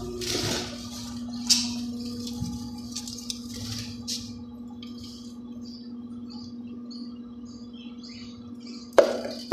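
Budgerigars chirping in short, scattered high twitters over a steady low hum, with a sharp knock about a second and a half in and a louder one near the end.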